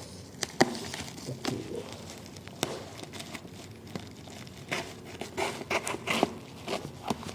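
Tripod packaging being opened by hand: irregular rustling and crinkling with occasional tearing and scattered sharp clicks.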